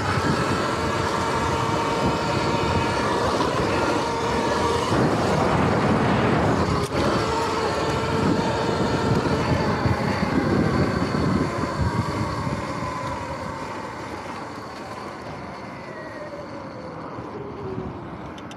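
Sur-Ron electric dirt bike's motor whining under rumbling tyre and wind noise over bumpy grass. Over the last several seconds the whine falls in pitch and fades as the bike slows down.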